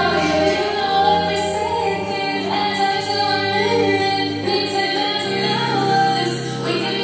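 Pop or R&B music with a woman singing.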